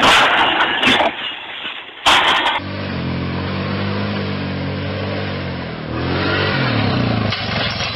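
ATV engine running hard. After a noisy first second and a short loud burst about two seconds in, it holds a steady pitch as the quad climbs a hill, dips briefly about six seconds in, then rises in pitch as it revs up.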